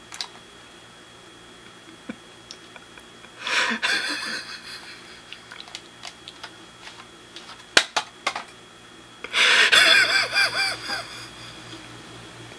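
A man's laughter, muffled behind his hand, in two short fits about three and a half seconds and nine and a half seconds in, with a sharp click near eight seconds.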